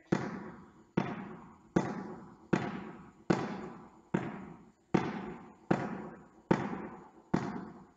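A small ball bounced one-handed on a sports hall floor and caught, about ten bounces at a steady pace of a little more than one a second. Each bounce is a sharp slap that rings on in the hall's echo.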